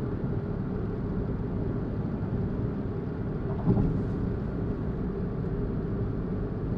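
Steady road and engine drone inside a moving car's cabin, with one brief louder bump a little past halfway.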